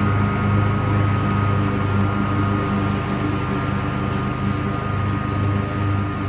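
Commercial Bobcat zero-turn mower running under load with its blades engaged, cutting thick grass: a steady engine note with a steady high whine over it, fading slightly as the mower moves away.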